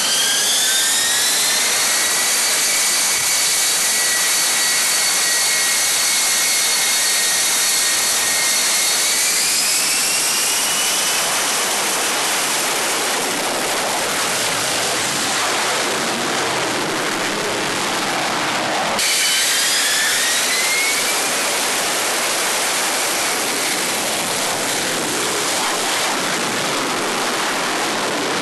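F-35B Lightning II jet engine running at high power, a loud steady rush with a whine that climbs in pitch about nine seconds in as it spools up for a short takeoff from the carrier's ski-jump. About 19 seconds in the sound cuts abruptly to another jet whose whine rises in pitch.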